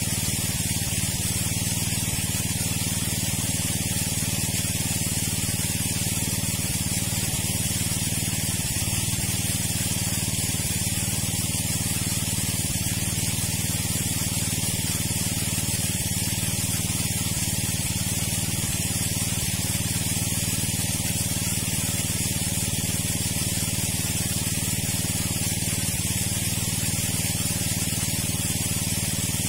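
Water pump engine running steadily at constant speed: an unchanging low drone with a hiss over it.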